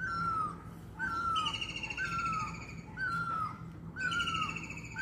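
Great barbet (nyauli) calling, a mewing note falling in pitch, repeated about once a second. A second bird's higher, fast twittering phrases overlap it twice.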